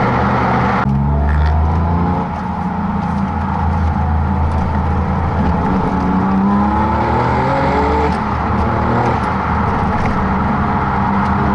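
Tuned Porsche 996 Turbo's twin-turbocharged flat-six engine under hard acceleration, its pitch climbing and dropping back several times as it shifts up through the gears. The sound changes abruptly about a second in.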